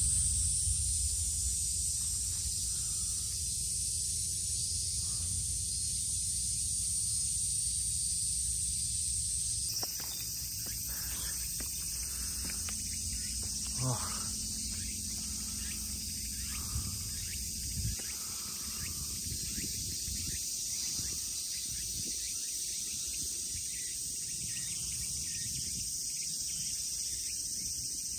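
Steady, shrill buzzing of insects in the trees, with wind rumbling on the microphone. The buzz shifts in pitch about ten seconds in, and a few faint knocks come later.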